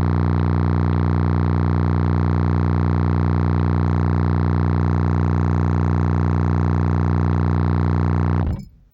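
Three 15-inch Slapz Audio Oblivion subwoofers playing a 30 Hz test tone at full power: a loud, steady drone with many stacked overtones. It cuts off suddenly about eight and a half seconds in.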